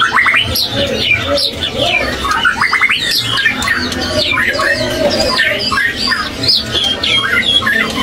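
Many caged songbirds calling and singing at once: a dense mix of whistles, chirps and gliding notes, with quick trills near the start and about two and a half seconds in. A steady low hum runs underneath.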